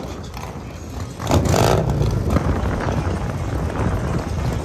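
Motorcycle engines running, with a louder rev-like burst about a second and a half in over a steady low rumble.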